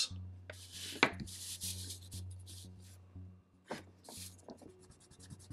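A sheet of paper with a crayon drawing being handled and slid on a tabletop: short papery scrapes and rustles, with a sharp knock about a second in and another near the middle, over a steady low hum.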